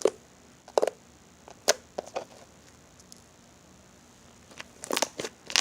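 Slime being handled and squeezed: a few sharp separate pops and clicks, then a quick run of crackling pops near the end.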